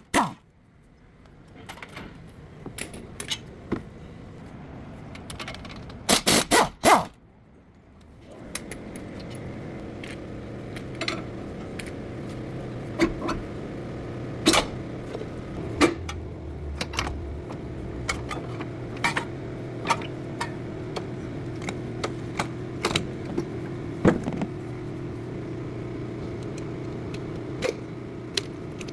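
Metal hand tools clicking and knocking during front axle work on a car, with a loud burst of rapid, evenly spaced clicking about six seconds in. From about eight seconds a steady low hum runs under the scattered clicks.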